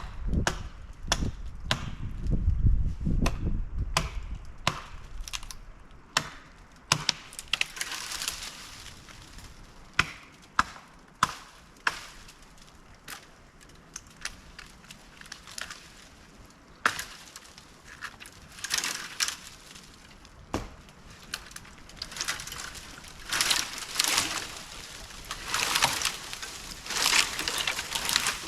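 Wood being chopped: a run of sharp wooden strikes and cracks, roughly one a second at first, then thinning out into stretches of rustling, brushy noise in the second half.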